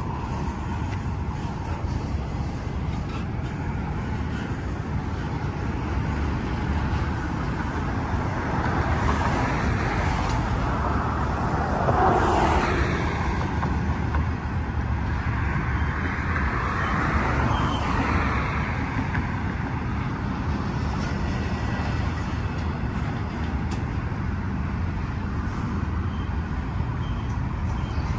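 Double-stack intermodal container train rolling past, a steady rumble of steel wheels on rail, with a louder swell near the middle.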